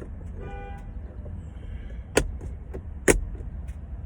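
Two sharp plastic clicks about a second apart, typical of an interior light lens cover being snapped back into place, over a steady low rumble.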